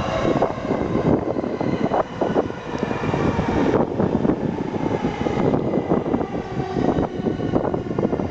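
Train running through the station: a steady rumble with repeated clattering from wheels on the track, and a high whine that cuts off suddenly about four seconds in.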